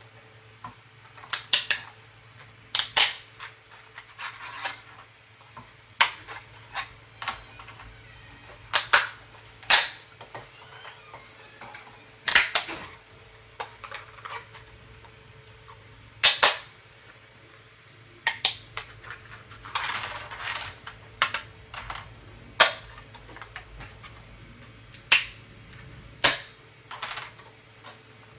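Sharp, irregular cracks and snaps of 3D-printed PLA pieces being broken off their print raft, one every second or few, over a faint steady hum.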